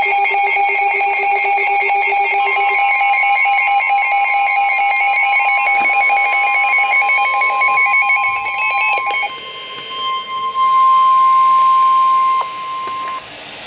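NOAA Weather Radio emergency alert signal: rapid, warbling digital data tones of the SAME header for about nine seconds, then the single steady 1050 Hz warning alarm tone, loudest for a couple of seconds and stopping shortly before the end.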